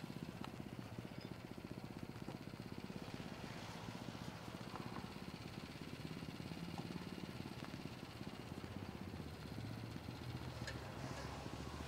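Engine idling steadily with an even low pulse, with a few faint clicks or knocks scattered through it.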